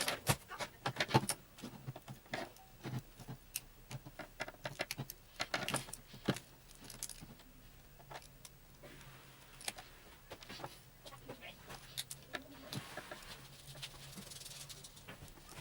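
Irregular clicks and light clatter of small hard parts and tools being handled while a hair dryer is worked on. The clicks are busy for the first few seconds and grow sparser after about halfway.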